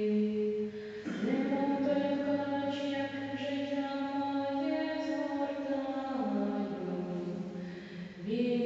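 Voices singing a slow liturgical chant in long held notes, moving to a new pitch about a second in and again near six and eight seconds.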